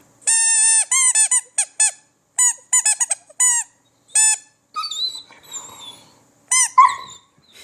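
Squeaky dog toy being squeezed over and over: one long squeak, then a quick run of short squeaks, and a few more squeaks near the end.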